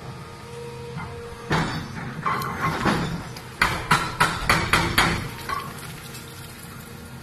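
Excavator breaking up a concrete bridge: a heavy crash and crumbling of concrete about a second and a half in, then a run of about six sharp knocks, over the steady hum of the machine's engine.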